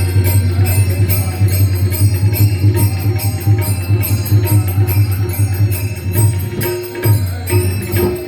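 Marathi devotional kirtan music: fast, even jingling percussion strikes over a steady low drone, with a brief break just before the end.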